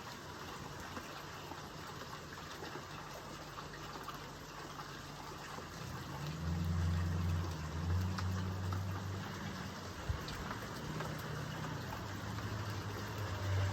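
Steady rain hiss. About halfway through, a low motor rumble comes in under it and carries on, with a single short knock a little later.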